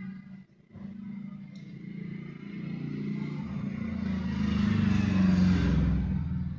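An engine running, growing louder to a peak about five seconds in, then easing off.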